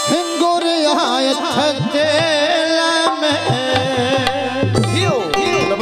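Amplified Punjabi folk music playing between sung lines: a wavering melody line with sliding notes over hand-drum beats and a bass line.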